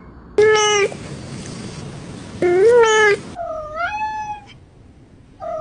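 Domestic cat meowing, three drawn-out meows with bending pitch and a fourth starting near the end.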